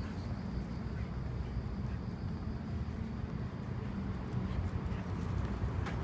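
Steady low rumble of distant road traffic, with one sharp click near the end.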